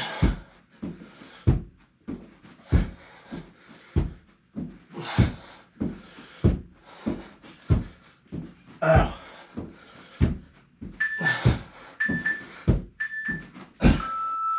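A man panting hard during a high-intensity exercise interval, with repeated thumps of landing feet. Near the end an interval timer gives three short beeps about a second apart and then a longer, lower beep, the countdown marking the end of the work interval.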